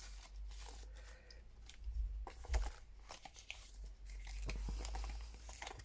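Paper and packaging rustling and crinkling in short, irregular bursts as sheets of craft stickers are handled and pulled from their envelopes.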